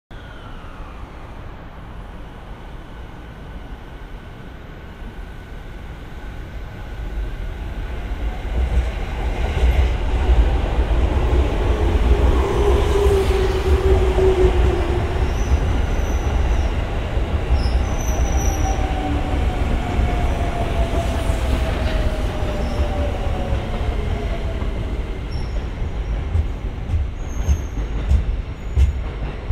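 JR East 205 series electric train running into the platform and braking. The rumble of wheels on rail builds from about six seconds in, and a tone falls slowly as the train slows, with a few clacks of the wheels near the end.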